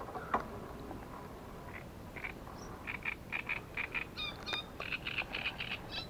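A small bird calling in a quick series of short chirps, about three a second, from about two seconds in. A single sharp click near the start.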